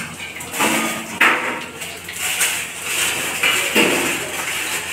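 Metal ladle scraping and knocking against a wok and a steel bowl as fried chicken slices are lifted out of hot oil, with the oil sizzling underneath. There are several sharp knocks, about half a second, a second, and nearly four seconds in.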